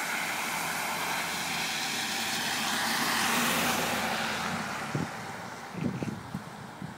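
A road vehicle passing by: its noise swells to a peak about three and a half seconds in and then fades away. A few short knocks follow near the end.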